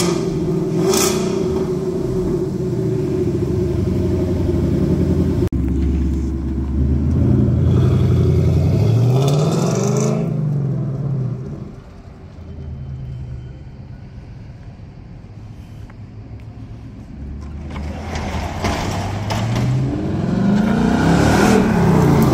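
2022 Mustang GT's 5.0 L Coyote V8 running through a Steeda H-pipe with the factory resonator removed, giving an old-school rumble. It idles steadily at the exhaust tips, then accelerates with a rising note, drops back, and comes back louder as the car drives close past near the end.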